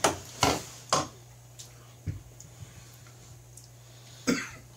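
A man coughing, three quick coughs in the first second and another near the end, set off by the super-hot Pepper X paste he just ate, a grainy flake of it catching in his throat.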